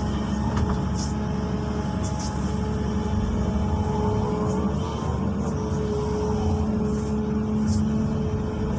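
XCMG 215C excavator's diesel engine running steadily under working load, heard from inside the cab. Tones from the machine rise and fall as the boom swings and the bucket dumps its load.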